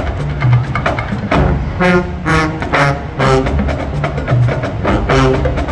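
Marching band playing: short pitched notes from the winds over drumline percussion, with sharp clicks and low drum hits in a steady rhythm.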